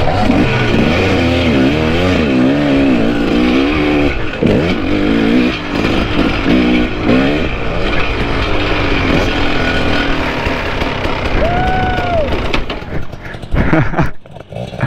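Two-stroke enduro motorcycles, a KTM EXC and a Kawasaki KDX, revving up and down as they climb a dirt track. About two seconds before the end the engine noise falls away as the bikes come to a stop.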